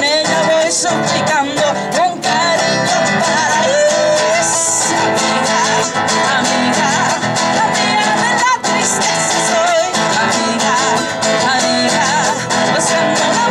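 Women singing a Spanish-language song, accompanied by a strummed acoustic guitar and a charango.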